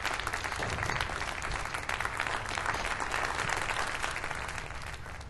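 Applause: a dense patter of many hands clapping, tapering off slowly toward the end.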